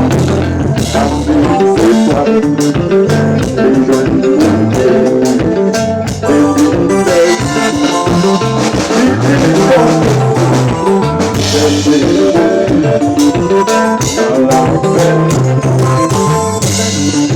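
Loud band music with a steady drum-kit beat, bass and guitar.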